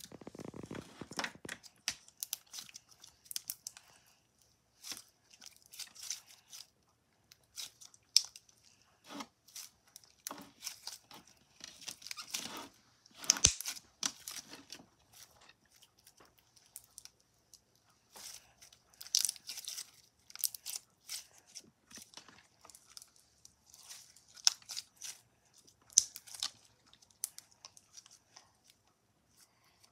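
Slime being squeezed, stretched and pressed by hand, making irregular sticky crackles, squelches and small pops. One sharper click falls about halfway through.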